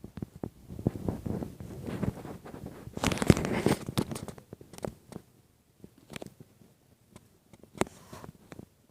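Campfire crackling, with irregular sharp snaps and pops and a louder, denser burst of crackle about three seconds in.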